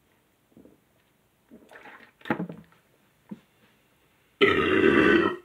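A person gulping soda from a bottle, with a few soft swallows, then a loud burp about four seconds in that lasts about a second, brought up by the fizzy drink.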